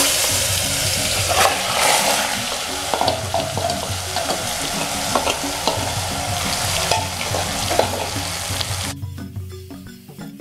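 Marinated mutton pieces dropped into hot oil in an aluminium pot, sizzling hard, with a metal spoon clicking and scraping against the bowl and pot as the meat is stirred in. The sizzle dies down sharply about nine seconds in.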